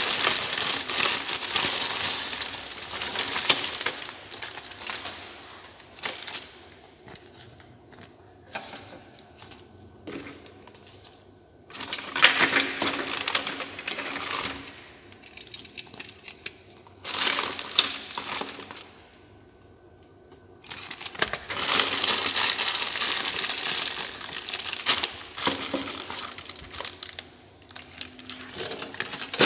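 Clear plastic packaging crinkling and rustling as toys are handled and unwrapped, in several loud bursts with quieter handling noises between.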